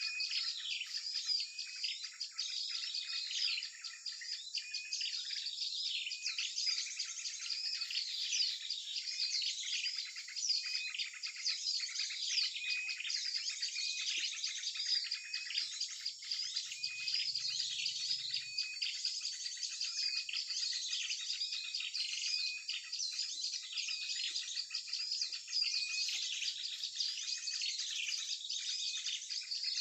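Dense, continuous chorus of many small birds chirping and twittering over one another, with short downward-sweeping notes repeating throughout: a mixed small-bird lure call recording played back to draw birds in.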